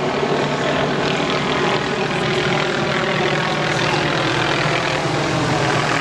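Aircraft engine running steadily at one constant pitch, loud and unbroken.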